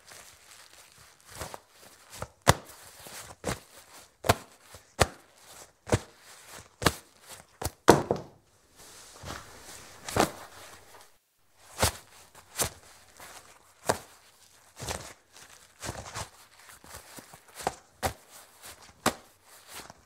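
Leather tobacco pouch handled and tossed about: irregular sharp slaps and taps of leather, about one or two a second, with soft leather rustling between them and a longer rustle about eight seconds in.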